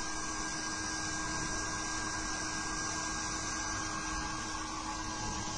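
Steady whir and hum of the PEEK 3D printer's fans running while the print is paused, even throughout with a constant low tone.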